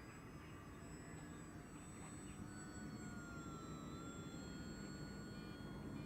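Faint, distant whine of an RC aerobatic plane's brushless electric motor and propeller in flight. Its pitch dips slightly about midway and it grows a little louder near the end.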